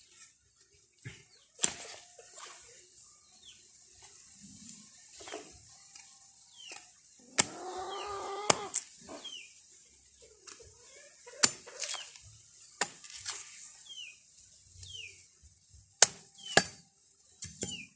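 Bolo knife chopping through the stalk of a saba banana bunch to cut off the hands of fruit: sharp single chops, about seven of them, spaced one to five seconds apart. Faint high chirps come between the chops.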